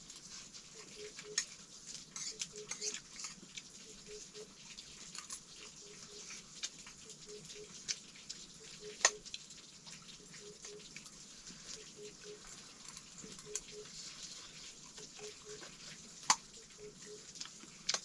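Rice frying in a hot pan: a steady crackling sizzle with frequent small spatters and a few sharp, loud pops.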